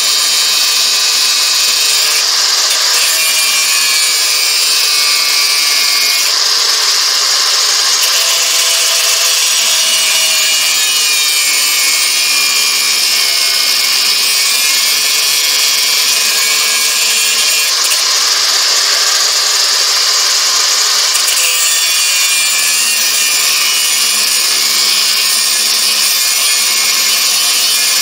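Angle grinder with a cut-off disc running continuously as it cuts into the forge-softened high-carbon steel of an old metalworking file held in a vise. It makes a steady, high-pitched grinding whine.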